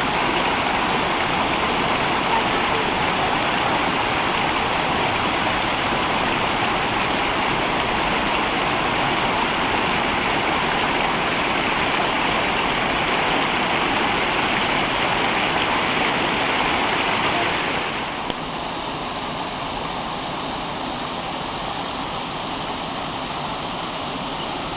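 Rushing water of a small stream and waterfall pouring over rocks, a steady wash of noise. About three quarters of the way through there is a click, and the water becomes a little quieter and duller.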